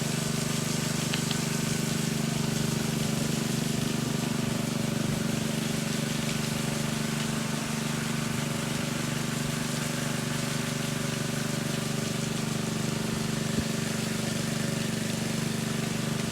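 An engine running steadily at a constant speed, with one short knock near the end.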